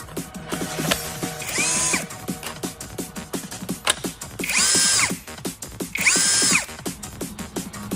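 Compact brushless cordless drill motor spinning up and winding down three times in short bursts of under a second, its whine rising in pitch, holding, then falling, over electronic background music with a steady beat.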